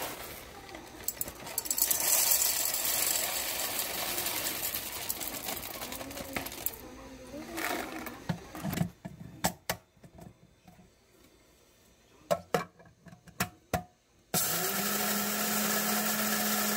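A steady rushing noise for about the first seven seconds, then scattered clicks and clinks as the grinder's parts are handled. About fourteen seconds in, a Wiswell electric coffee grinder starts suddenly and runs with a steady whirring hum, grinding coffee beans fine.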